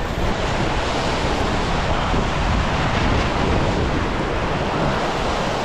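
Ocean surf surging and breaking against a rock ledge in a steady wash, with wind buffeting the microphone.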